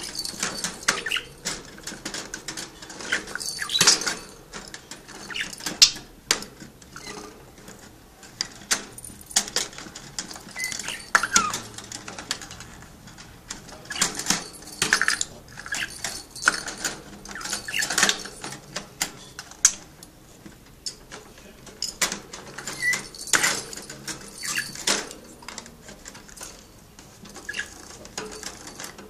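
Budgerigar in a wire cage: irregular scratchy clicks and rustles, with a few short chirps now and then.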